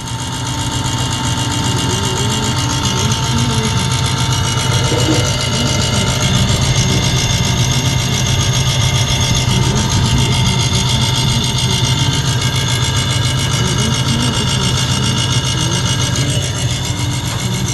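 Refrigeration compressor unit running with a loud, steady low hum and a mechanical whir; this is a compressor that intermittently sticks and trips its thermal overload.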